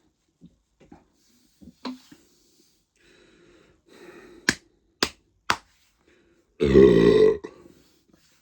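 A man's loud, low-pitched burp lasting just under a second, brought up by the gas from chugging carbonated lemonade. It comes about two-thirds of the way in, after three sharp clicks about half a second apart.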